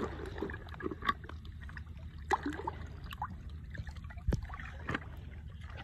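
Muddy pond water splashing and sloshing against an earth bank, with scattered light clicks and taps and one sharper knock near the end.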